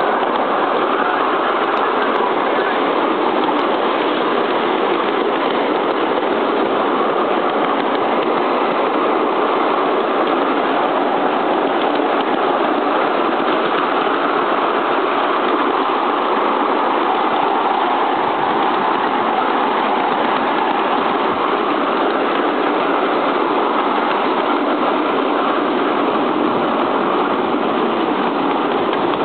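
A 7¼ inch gauge 2-4-2 tender steam locomotive under way, heard from the carriage just behind it: a steady train running noise of the engine chuffing and the wheels on the rails.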